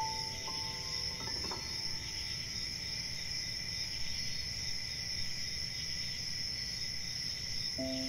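Night-time rainforest ambience: a steady chorus of crickets and other insects chirring over a low, even background hiss. A few soft melody notes ring out and fade in the first second or two, and the gentle tune starts up again near the end.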